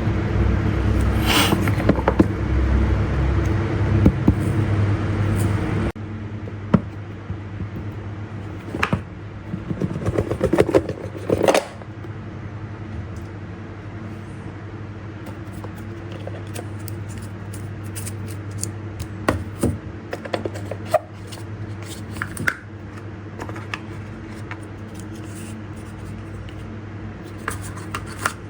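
Earbud-unboxing handling noise: scattered sharp clicks and short scrapes and rustles of packaging and the charging case over a steady low hum. For the first six seconds a louder steady rumble is underneath, then it cuts off suddenly to a quieter background.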